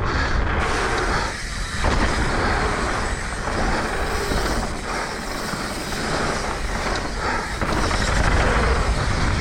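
Wind buffeting an action camera's microphone and tyre noise from a mountain bike riding fast down a dirt trail, a steady rushing rumble with brief knocks and rattles from bumps.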